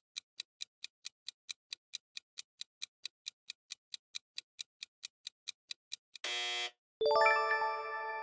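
Clock-ticking countdown sound effect, about four even ticks a second for roughly six seconds. Then comes a brief burst, followed near the end by a bright chime that rings on and slowly fades, signalling the answer reveal.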